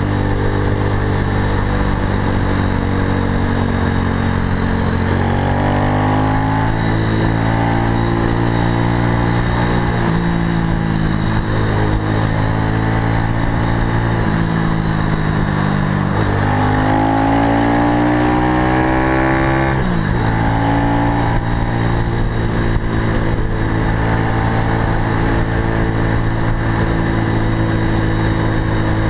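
Zongshen 190 cc single-cylinder four-stroke engine of a Super Cub–style motorcycle running under way, its pitch rising twice as it accelerates, about five seconds in and again from about sixteen seconds, then dropping sharply at about twenty seconds as the rider shifts up a gear.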